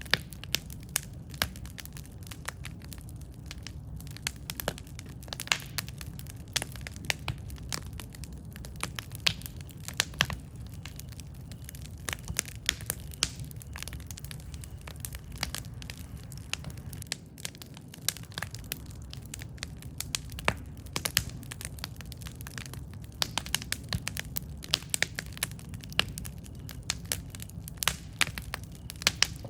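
Campfire burning with irregular sharp crackles and pops over a steady low rumble of the flames.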